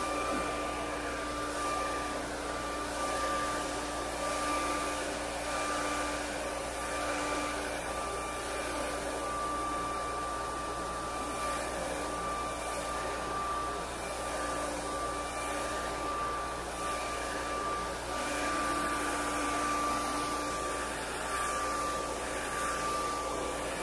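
Handheld hair dryer running steadily, blowing air through hair, with a steady motor whine over the rush of air.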